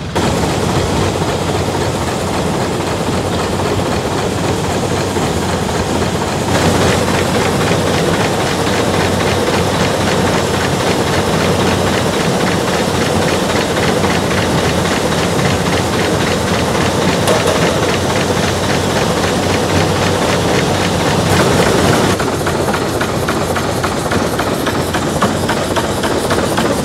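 Working farm machinery running steadily: a dense mechanical clatter with a fast, even rhythm and a hiss, the sound brightening about six seconds in and shifting again a little past twenty seconds.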